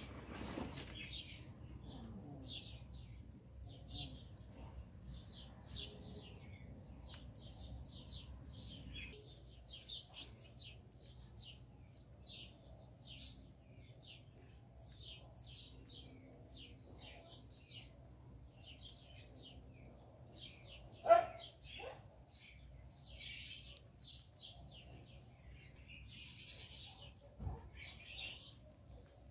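Short high-pitched chirps repeating irregularly, a few a second, over a faint steady low hum, with one sharp louder click-like sound about two-thirds of the way through.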